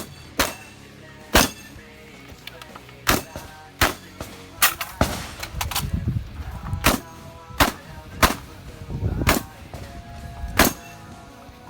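Shotgun firing about a dozen shots at uneven intervals, roughly one a second, during a competition stage, over background music.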